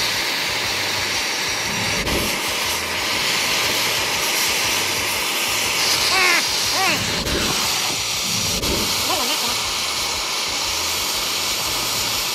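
Gas torch flames hissing steadily as they keep silver molten in a ceramic crucible and then in a graphite ingot mould.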